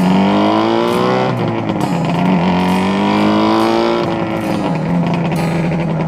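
Yamaha RZ250R's two-stroke parallel-twin engine pulling alongside: the revs climb and fall back twice as it shifts up, then hold steady.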